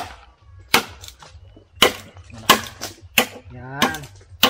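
Bolo knife chopping into a green bamboo pole: about seven sharp strikes, each a little under a second apart, with a short vocal sound near the end.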